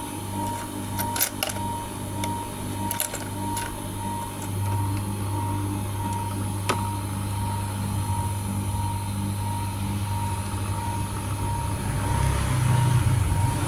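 Steady electric motor hum of an optical lens edging machine, with a few sharp clicks and knocks from handling its parts; the hum swells near the end.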